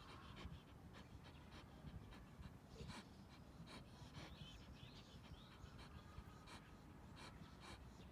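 Red Shiba Inu dog panting faintly, with soft irregular clicks and rustles.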